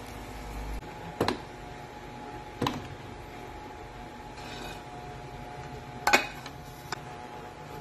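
Cooking utensil knocking against a frying pan and a metal strainer while caramelized fried bananas are lifted out of the oil. There are four short knocks, the loudest about six seconds in, over a low steady hiss.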